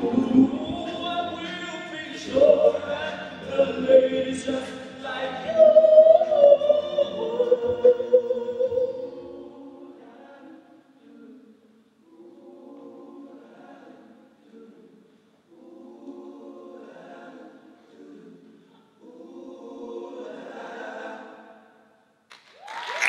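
Men's a cappella group singing: full and busy at first, then thinning after about nine seconds into soft, separate closing phrases with short pauses. Audience applause breaks out right at the end.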